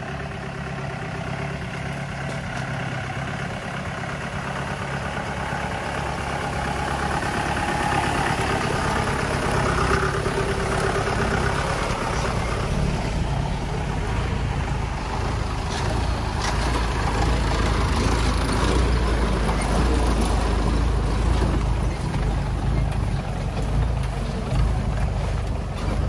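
Mahindra 4x4 jeep's diesel engine running as the jeep crawls along a rough, overgrown forest track. It grows louder about six seconds in, and a few knocks come through in the middle.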